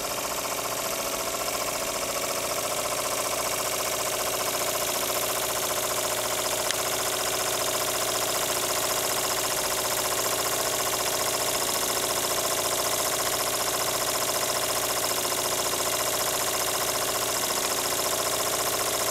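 Bowman-Bryant "BM" valveless model marine steam engine from about 1948, running steadily on steam from a spirit-fired boiler, with an even mechanical beat.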